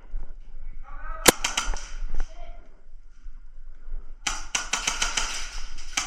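Airsoft guns firing indoors: a single sharp shot about a second in, then rapid full-auto bursts of many quick cracks from about four seconds in.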